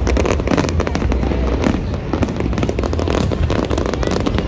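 Fireworks exploding in a dense, continuous barrage: rapid crackling and bangs over a heavy low rumble of booms.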